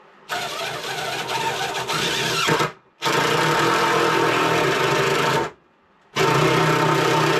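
Cordless drill-driver running in three bursts of a few seconds each, with short pauses between, driving long wood screws into thick worktop without pilot holes. It runs on a battery that sounds unhealthy and is close to going flat.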